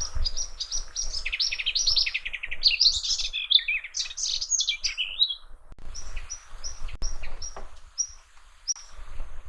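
Songbirds singing: a fast, twittering trilled song for the first half, then a series of short, high chirps repeated evenly, about two or three a second.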